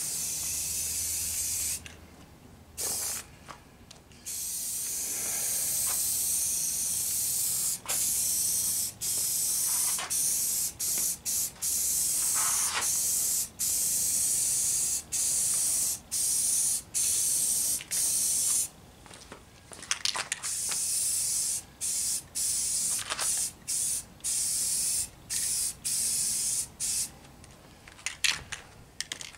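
Aerosol spray paint can hissing in repeated bursts of a second or two, broken by short pauses and a few longer stops, as paint is sprayed onto bare wooden bench slats.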